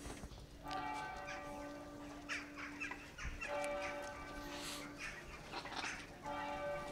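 Large bells ringing, with a fresh stroke roughly every three seconds, each one leaving a long, steady ringing hum.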